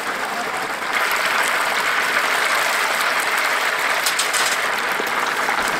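Whole chickens deep-frying in a cast-iron cauldron of hot oil: a dense, steady sizzle of bubbling oil that grows louder about a second in.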